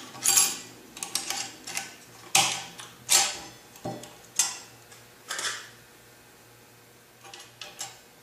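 Light metallic clinks as steel stop-ring pieces are fitted into the grooves of a ZF 5HP19 automatic transmission's clutch drum: about a dozen sharp clicks over the first five seconds or so, then a few faint ticks near the end.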